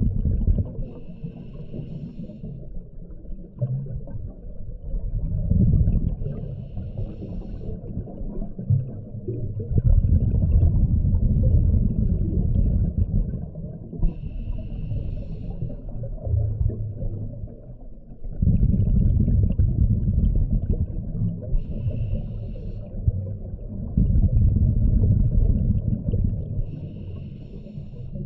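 Scuba diver breathing through a regulator underwater: five short hisses several seconds apart, with long rumbling gushes of exhaled bubbles in between.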